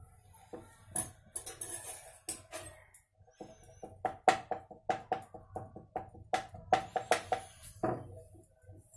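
A fork pricking a rolled disc of papdi dough, its tines tapping through onto a metal rolling board: a few scattered knocks, then from about three seconds in a quick run of taps with a ringing metallic tone, several a second.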